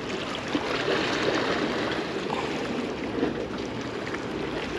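Sea water washing and splashing against shoreline rocks, a steady noisy wash.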